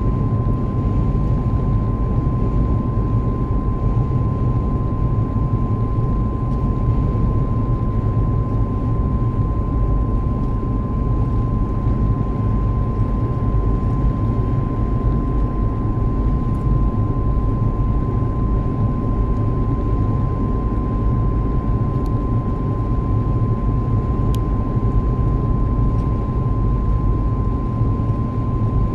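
Steady high-pitched whine from a Mitsubishi Pajero driving at about 70 km/h, one unwavering tone over a constant low road-and-engine rumble.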